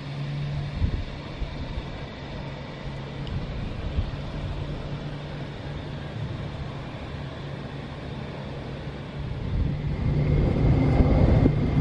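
Wind buffeting the microphone over a steady, distant engine drone; the wind rumble grows louder about ten seconds in.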